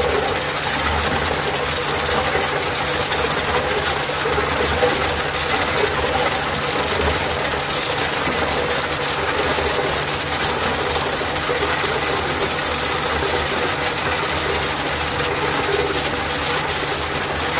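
Tube ice clattering continuously as a stream of ice tubes drops from the tube ice machine's outlet onto a pile in a stainless steel hopper, over the machine's steady low running hum during the harvest.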